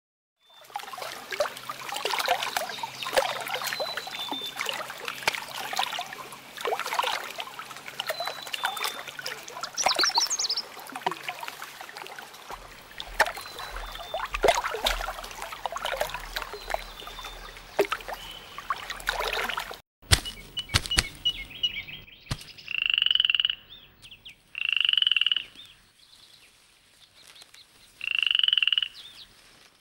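A dense chorus of frogs croaking, many short clattering calls overlapping. About two-thirds through it cuts off abruptly, and then three louder, drawn-out calls come a couple of seconds apart.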